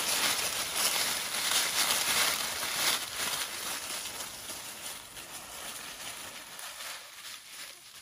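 Dry leaf litter and brush rustling and crackling as dogs push through it, growing steadily fainter after about three seconds.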